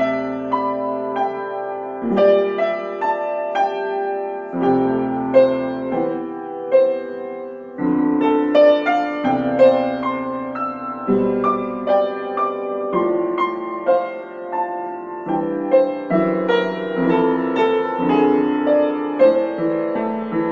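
Solo piano playing a slow instrumental piece: a melody of struck notes over low held notes, with a new bass note every two seconds or so.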